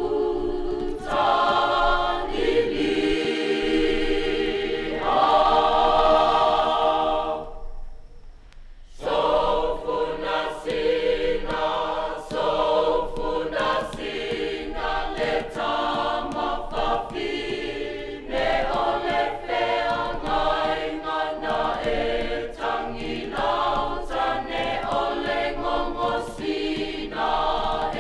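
A choir singing: long held chords, a brief drop almost to silence about eight seconds in, then quicker rhythmic phrases.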